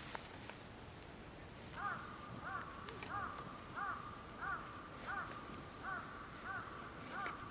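A bird calling in the distance: a run of about nine short rising-and-falling notes, about one and a half a second, starting about two seconds in.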